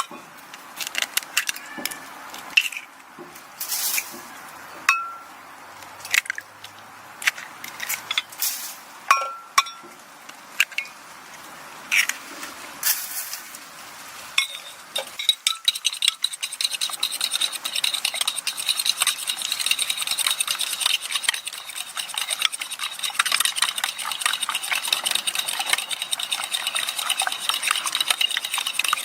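Metal utensils clinking and scraping against a cooking pot, in scattered sharp strikes, some ringing briefly. From about halfway a dense, steady crackle sets in, like food sizzling in the pan.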